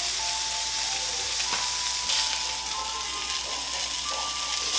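Seasoned sirloin steaks searing in hot avocado oil in a cast-iron skillet, a steady sizzle.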